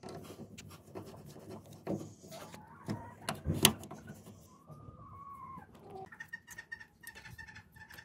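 Clicks and rattles of hands handling the plastic wiring connectors of a radiator fan, with one sharp click about three and a half seconds in. In the second half birds call, with a steady pulsing chirp near the end.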